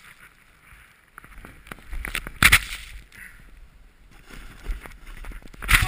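Snowboard sliding and carving through powder snow, with two louder scraping surges as the board turns, about two and a half seconds in and near the end.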